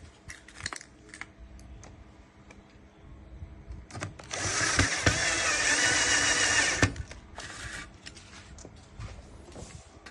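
A small electric motor runs for about two and a half seconds with a steady whine, starting about four seconds in, amid scattered light clicks and knocks.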